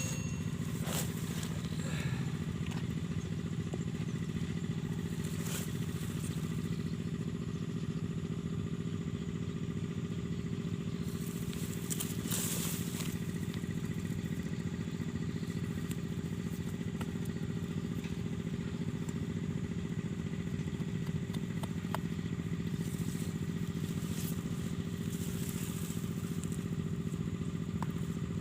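A small engine running steadily at one constant speed, with a few short clicks and knocks over it.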